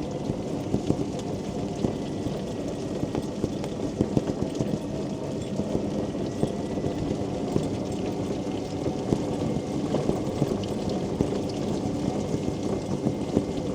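Quingo Toura Mk2 mobility scooter driving along, its electric motor running steadily with a faint whine, with frequent small clicks and knocks throughout.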